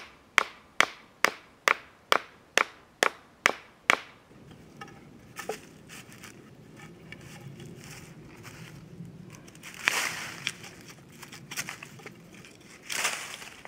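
Hatchet knocking a wooden stake into the ground: about ten sharp strikes, a little over two a second, ending about four seconds in. Then softer scraping and rustling of soil, leaves and wood as a pole is set against the stakes, with two louder scrapes near the end.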